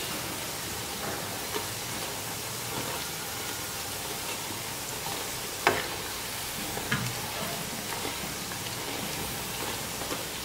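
Strips of maida dough deep-frying in oil over a low flame, a steady sizzle, while a perforated steel slotted spoon stirs them. A single sharp tap about halfway through.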